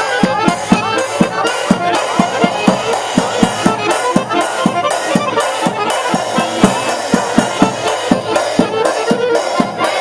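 A live band playing fast folk dance music over a steady quick beat of about four strokes a second.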